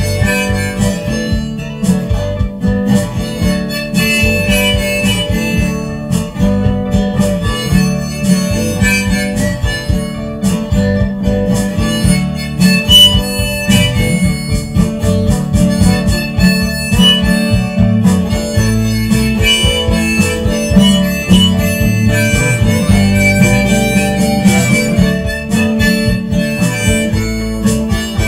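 Harmonica played in a neck rack over a strummed acoustic guitar: an instrumental break with no singing.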